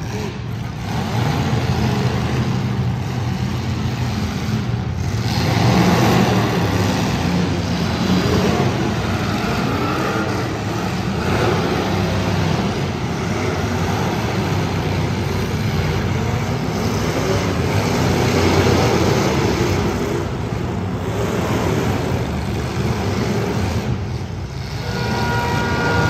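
Demolition derby cars' engines running under load, a dense steady rumble. A horn starts sounding near the end.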